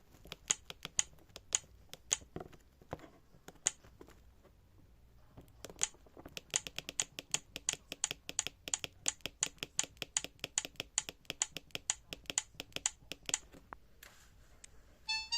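Keypad buttons of an Alcatel OT-385JA mobile phone clicking as they are pressed. There are a few scattered presses at first, then a quick run of about four clicks a second, which stops shortly before the end.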